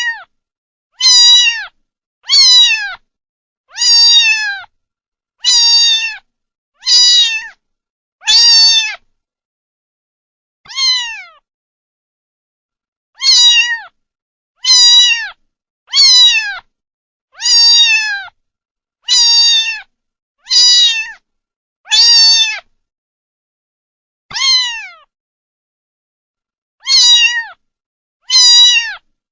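Kitten meowing again and again: high-pitched meows, each under a second and falling in pitch at the end, with short pauses between them and a few longer gaps.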